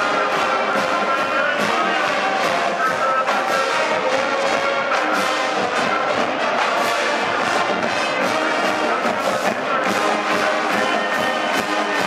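Marching band playing: massed brass carry a sustained tune over a steady drum beat.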